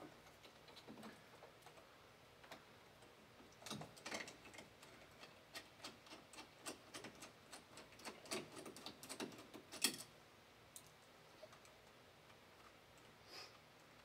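Faint metallic clicks and small rattles of an interior door lever handle and its latch being worked loose by hand: a scatter of light clicks from about four to ten seconds in, then one more near the end.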